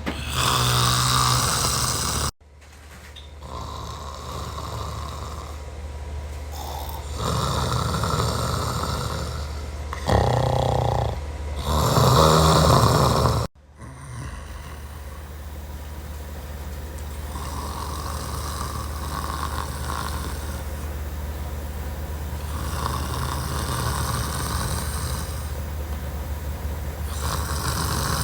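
A man snoring in his sleep, one rasping snore every few seconds, over a steady low hum. The sound cuts out suddenly twice for a moment.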